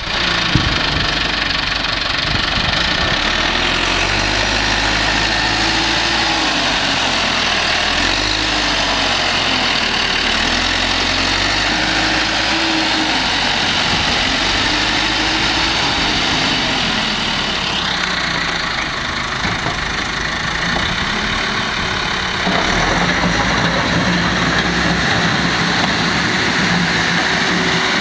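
1997 JCB 217S backhoe loader's diesel engine running steadily. For the first half a tone in the sound rises and falls in pitch every couple of seconds. About 22 seconds in the tone shifts and gets a little louder.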